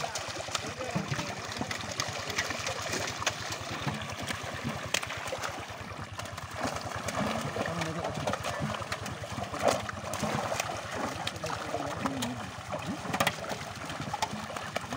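Many fish thrashing in a seine net drawn tight at the water's surface, a continuous patter of small splashes and slaps.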